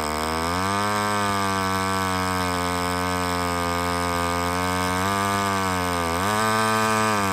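Vintage two-stroke chainsaw running hard through wood, its engine note sagging under load and climbing back, with a deeper dip about six seconds in.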